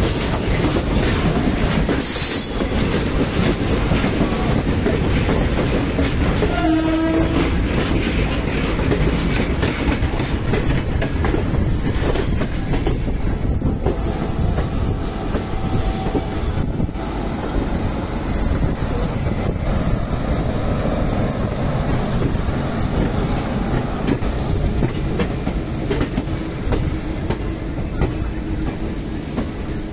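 Indian Railways express passenger coach running at speed, heard from on board: a steady rumble and rattle of wheels over the track, with a brief pitched tone about seven seconds in.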